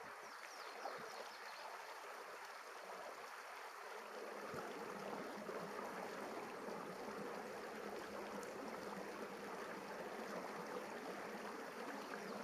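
Shallow river running over rock ledges in small rapids: a steady rush of water.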